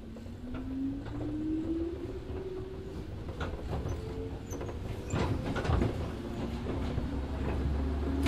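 Motor-car interior sound of a JR Kyushu 103 Series 1500 electric train (MoHa 103-1502) pulling away: the MT55 traction motors give a whine that rises in pitch, twice, as the train gathers speed, over a growing low rumble, with a few knocks of the wheels over rail joints.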